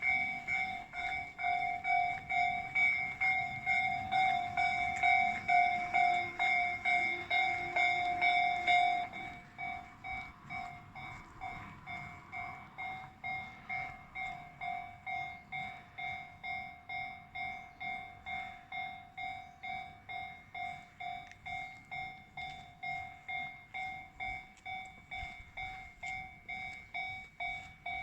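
Japanese railway level-crossing warning bell ringing in an even, repeating electronic ding, just under two dings a second. It is louder for about the first nine seconds, then drops suddenly and keeps ringing more quietly.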